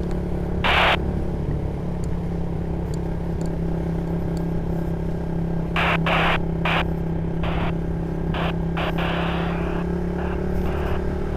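Motorcycle engine running at a steady pitch while cruising, heard from the rider's seat, with several short bursts of hiss in the middle and later part.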